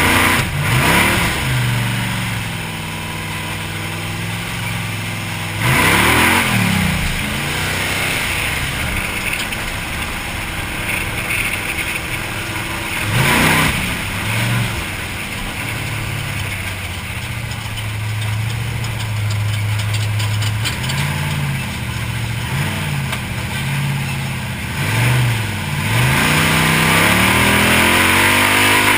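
Trophy truck's engine, heard from inside the cab, revving up and down as the truck is driven hard over sand. The revs surge several times, with steadier running in between.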